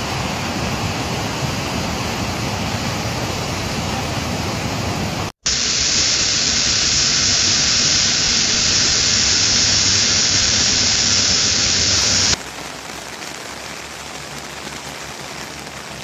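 Rushing floodwater, a steady loud rush of muddy river water. An abrupt cut about five seconds in brings a louder, hissier rush of a churning torrent, which drops off suddenly near the end to a quieter steady hiss.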